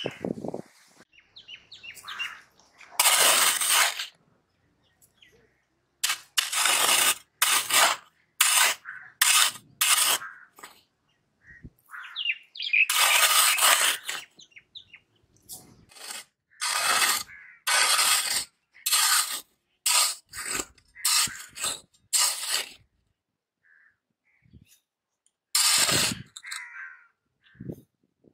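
Small hand hoe scraping and digging into sandy soil in a series of irregular strokes, each a short burst of gritty noise with brief gaps between.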